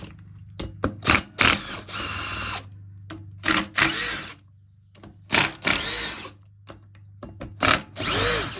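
Ratchet wrench with a 5/16 socket clicking in several short bursts as the long through-bolts of a pool pump motor are loosened, some bursts carrying a brief whine that rises and falls.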